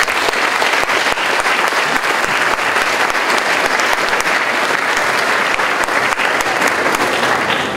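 Audience applauding: many people clapping together, easing off near the end.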